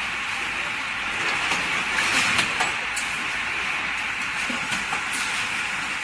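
Automatic carton packing machine running: a steady hiss with scattered sharp clicks and knocks, several coming close together about two seconds in.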